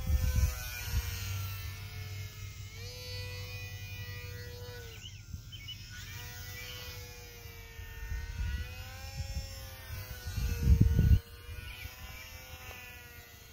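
Electric motor and propeller of a Parkzone UMX Pole Cat micro RC plane whining overhead in flight, the pitch rising and falling with throttle and cutting out for about a second around five seconds in. A loud low rumble swells briefly near eleven seconds.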